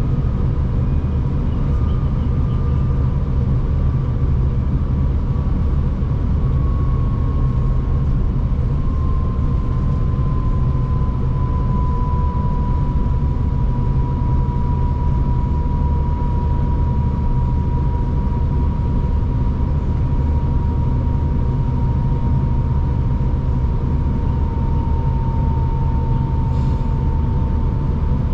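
V/Line passenger train running along the track, heard from inside the carriage: a steady low rumble with a whine that slowly falls in pitch.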